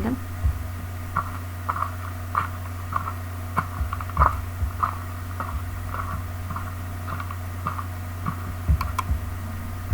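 Footsteps sound effect played back with a PowerPoint walking-man animation: short even steps about two a second, over a steady low hum.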